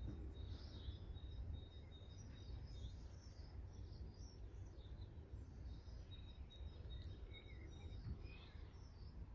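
Faint, scattered high-pitched chirps and twitters, with a thin steady whistle coming and going, over a constant low rumble.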